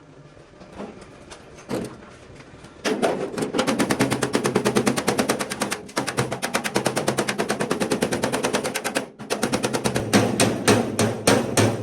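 Bajaj RE three-wheeler's single-cylinder engine starting about three seconds in and running with a rapid, even beat of about ten pulses a second. It cuts out briefly near the end, then runs again.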